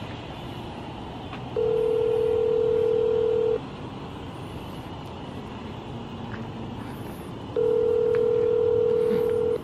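Telephone ringback tone on a smartphone's speakerphone while an outgoing call rings unanswered: two steady rings, each about two seconds long, with a four-second pause between them.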